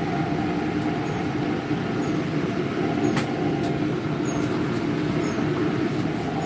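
Steady drone of the trailer kitchen's air handler and fans running, with a sharp clink of kitchen utensils about three seconds in.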